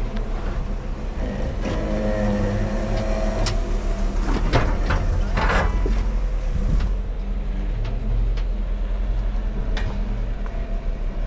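Off-road 4x4 vehicle's engine running at low speed on a rocky trail, with a steady low rumble. Several sharp knocks and clunks come through, the loudest about four and a half seconds in, with fainter clicks later on.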